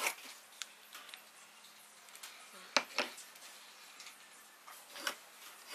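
A few light clicks and taps of small hand tools handled on a wooden workbench, as a pencil, tape measure and wooden marking gauge are set against a hardwood block. The loudest is a pair of sharp ticks close together about three seconds in.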